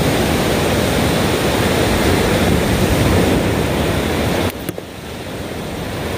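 Surf washing onto a sandy beach, mixed with wind rushing on the microphone. The noise drops sharply about four and a half seconds in, then slowly builds again.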